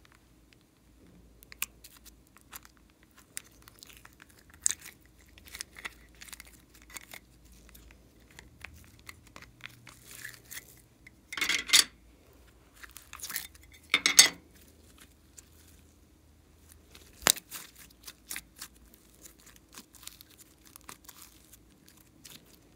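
Slime being handled and squeezed out of plastic containers by hand: scattered sticky crackles and small pops, with two louder bursts around the middle and a single sharp click a few seconds after them.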